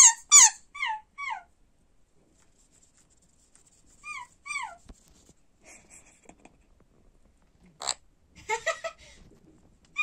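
Sun conure calling: short, squeaky chirps that fall in pitch, a quick run of about five in the first second and a half and two more about four seconds in, then a sharp call and a burst of rougher chatter near the end.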